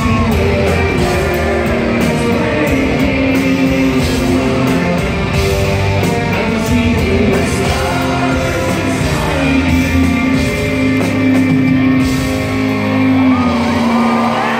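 Rock band playing live in an arena, with a singing voice over guitars and a drum kit, echoing in the large hall.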